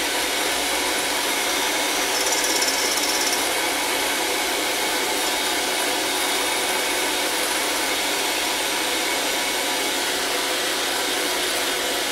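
Electric hand mixer running steadily, its beaters whipping egg yolks in a glass measuring cup until they are pale and aerated.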